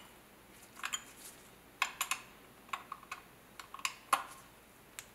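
Irregular sharp metal clicks and ticks of a steel Torx key and screws against an aluminum cover plate as the screws are turned in and tightened.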